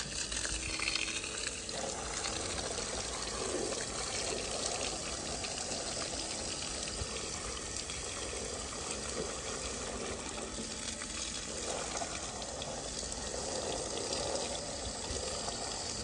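Water gushing out of the open end of a water supply pipe in a strong jet, splashing onto grass and paving as the line is flushed. The rush of water runs steadily throughout.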